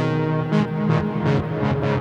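Behringer Wave wavetable synthesizer playing a sustained chord, with a run of bright, quickly decaying notes struck about three times a second over it.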